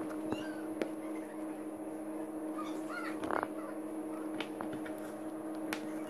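Small precision screwdriver ticking and clicking against the plastic frame of a Nokia Lumia 625 as its back screws are undone, a few scattered clicks over a steady hum.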